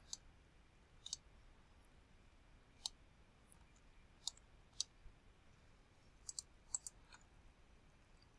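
Faint computer mouse button clicks, single and irregularly spaced, with a quick run of three or four clicks a little past six seconds in.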